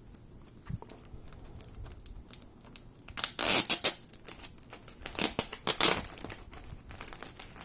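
A large folded paper poster being opened out by hand: small handling clicks, then two loud bouts of paper crinkling and rustling, about three and five seconds in.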